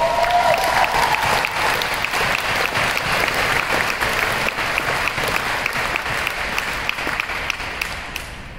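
Audience in a large hall applauding, dying away near the end.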